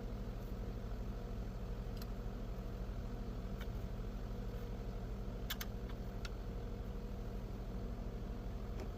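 Concrete pump truck's diesel engine running steadily, with a few light clicks over it.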